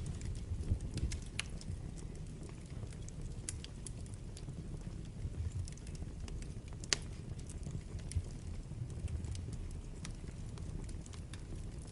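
Wood fire burning in a fireplace: a steady low rumble of flames with scattered sharp crackles and pops, the loudest pop about seven seconds in.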